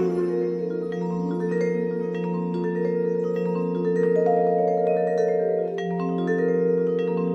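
Vibraphone played with four mallets: runs of struck notes that ring on and overlap, over a steady held low note.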